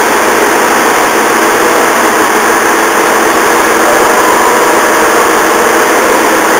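The underfloor diesel engine-generator of a JR East HB-E300 series hybrid railcar running at idle, a steady loud drone that does not change.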